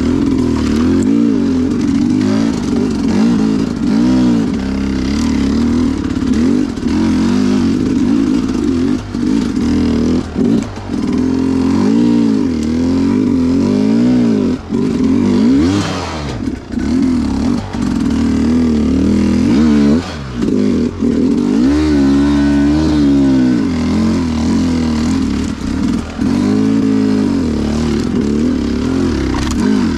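Two-stroke dirt bike engine revving up and down over and over as the rider works the throttle over rough trail, with a long high-revving pull a little past the middle and a few brief drops off the throttle.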